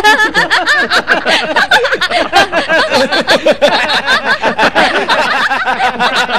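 Several people laughing together at once, starting suddenly and loudly, with many overlapping bursts of laughter.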